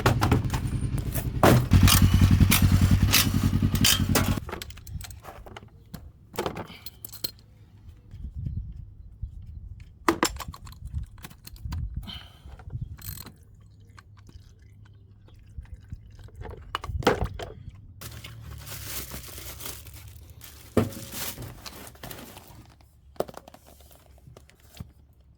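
A loud, fast rhythmic mechanical sound for the first four seconds that stops suddenly, then scattered metallic clinks, knocks and scrapes of tools and parts being handled.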